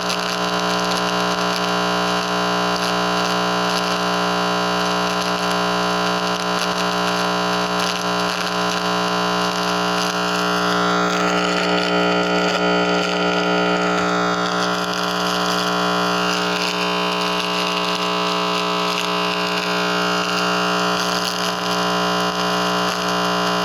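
Audio output of a handheld microwave/RF receiver: loud, steady buzzing static with many constant tones layered in it, the pattern shifting slowly about halfway through.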